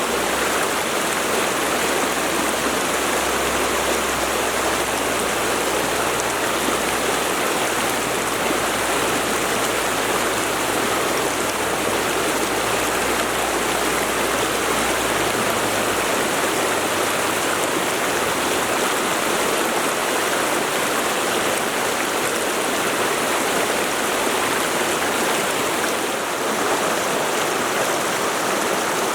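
Mountain river rushing steadily over rocks, an even, unbroken rush of water.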